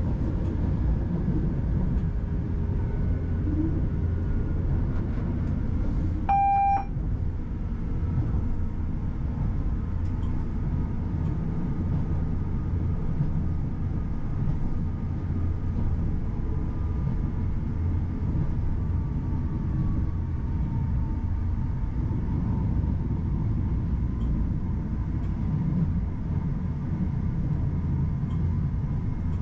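Class 331 electric multiple unit running on the line, heard from the cab: a steady low rumble with a faint whine drifting slowly in pitch. A single short electronic beep sounds about six seconds in.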